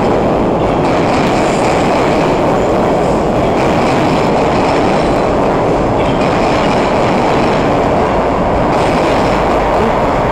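Rapid-transit train rolling along the track, a loud, steady rumble and wheel noise on the rails, with no horn yet.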